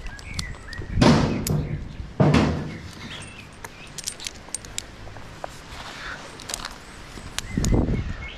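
A tree climber handling climbing rope and metal climbing hardware: two loud rubbing, rustling pulls of rope about one and two seconds in, light metallic clinks of carabiners through the middle, and another rope rub near the end.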